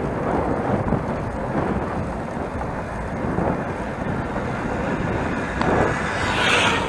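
Wind buffeting the microphone of a bicycle-mounted action camera while riding, an uneven low rumble, over the bike's tyre rolling on asphalt.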